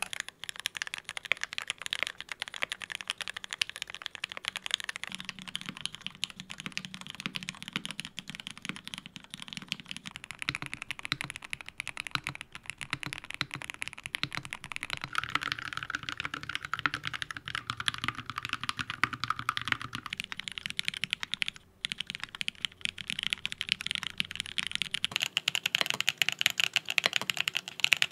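Fast, continuous typing on a series of custom mechanical keyboards. The keystroke sound changes character every few seconds as one board gives way to the next, with a short break about three-quarters of the way through.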